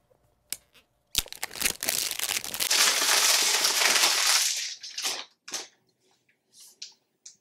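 Clear plastic wrapping crinkled and crumpled in the hands: a sharp start about a second in, dense crackling for about three and a half seconds, then a few short crinkles.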